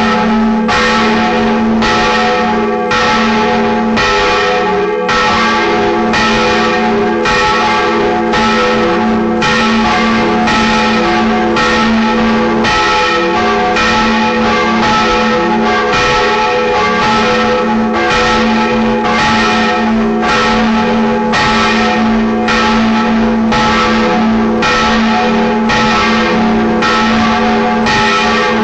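Steel church bells, cast in 1909 by Bochumer Verein, ringing a full peal: strikes come about once a second over a continuous hum from the bells' ringing tones.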